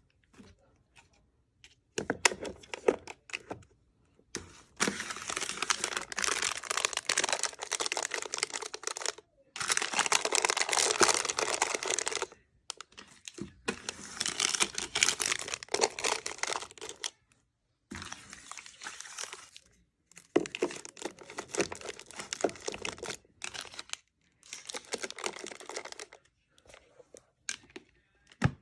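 Packaging being crinkled and torn open in bursts of a few seconds each, with short silent breaks between them, as items are unwrapped for restocking a mini fridge.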